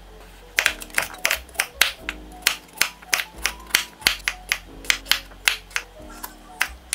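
Chef's knife chopping purple sweet potato and carrot on an end-grain wooden cutting board: sharp, evenly spaced chops, about three a second, starting about half a second in, over background music.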